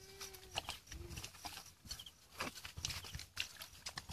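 Footsteps wading through shallow water and mud among rice plants: irregular splashes and squelches, with a couple of brief pitched animal calls near the start.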